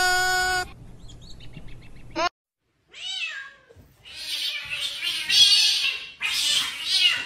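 A baby goat's long bleat cuts off a little over half a second in. Then, from about three seconds, a cat hisses and yowls in several bouts: the defensive cries of a cat being harassed by a monkey.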